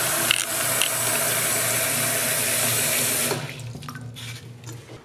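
Water tap running, filling a plastic cup with water; the flow stops about three seconds in, followed by a few faint clicks.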